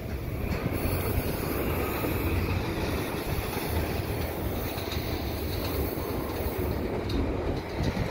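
Double-stack container well cars rolling past, their steel wheels making a steady noise on the rails.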